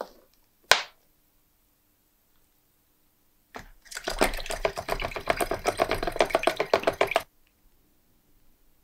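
A single sharp click about a second in, then a fast rattling run of clicks lasting about three and a half seconds that stops abruptly.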